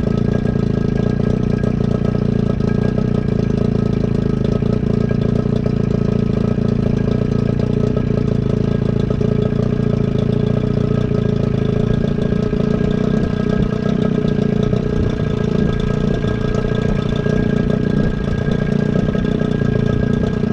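1979 Johnson two-stroke outboard motor running steadily out of the water, on a garden-hose flush, after sitting unused for seven years.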